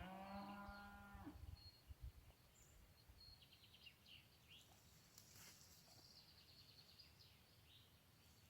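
A cow moos once, a single call of about a second at the start, followed by faint bird chirps.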